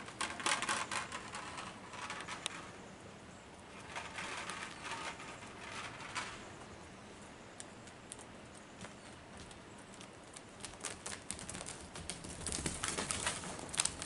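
Irregular clicks, crunches and rustling from deer moving and feeding close by, with denser spells of rustling at the start, in the middle and near the end.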